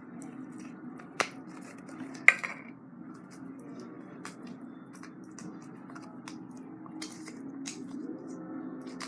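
Floam, slime packed with foam beads, being squeezed and worked in the hands: scattered small crackles and clicks, with two louder pops about one and two seconds in, over a steady low hum.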